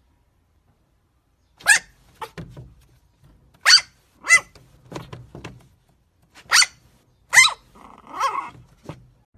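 Chihuahua puppy barking in short, high-pitched yaps, about ten of them starting a second and a half in, with a longer wavering call near the end.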